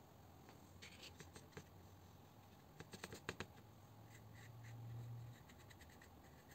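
Faint clicks and light scratching from a watercolour brush being worked on paper, with a brief low hum about four seconds in.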